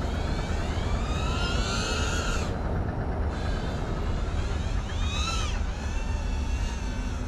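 FPV quadcopter's electric motors whining, their pitch sweeping up and down as the throttle is worked: one long sweep in the first two and a half seconds and a short rise-and-fall about five seconds in. A steady low rumble runs underneath.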